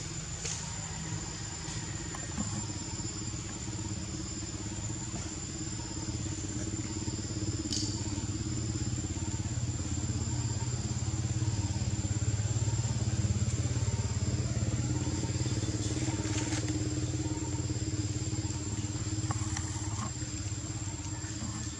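A motor engine running steadily, with a low hum that grows louder through the middle and then eases off, under a thin, steady high-pitched whine.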